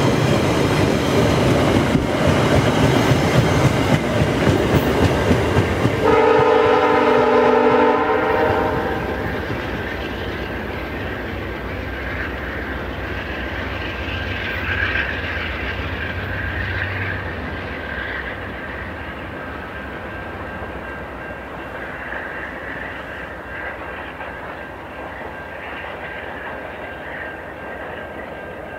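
Last LRC coaches of a VIA Rail passenger train clattering past, wheels clicking over the rail joints. About six seconds in, the GE P42DC locomotive up ahead sounds one horn blast of two or three seconds. Then the train's rumble fades as it pulls away.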